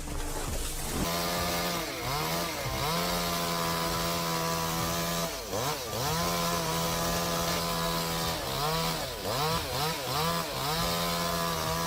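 Chainsaw running at high revs from about a second in, held steady for long stretches, with the revs dropping and picking back up several times, in quick repeated dips near the end.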